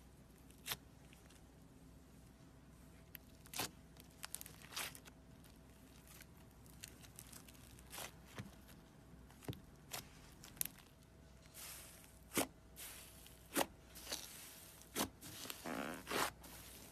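Butter slime being squeezed and poked, giving scattered sharp clicks and pops that come more often in the second half, with a longer crackling stretch near the end.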